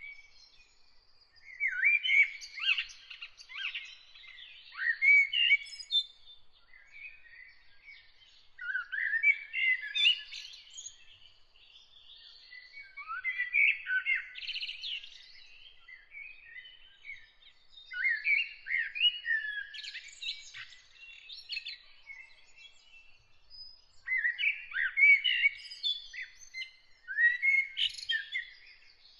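Songbird singing in repeated varied phrases of two or three seconds, with short pauses between them, and a faint thin high steady tone behind.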